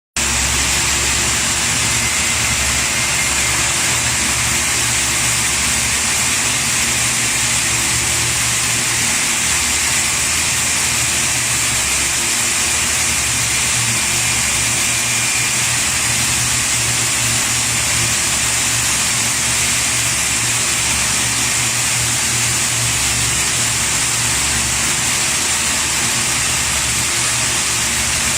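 Loud, steady industrial machine noise: an even hiss over a low hum that pulses slightly, with no change in level.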